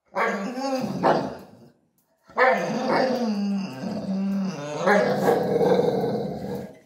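Dog growling over the food bowls in two long, wavering stretches, a short one at the start and a longer one from about two seconds in: food guarding, the small dog keeping the bigger dog away from the bowl.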